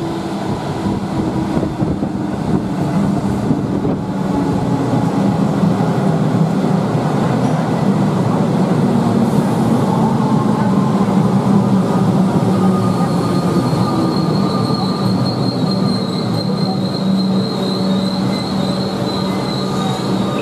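Electric suburban train pulling into an underground station platform and slowing to a stop, with a steady motor hum. A thin, high wheel or brake squeal joins in about two-thirds of the way through.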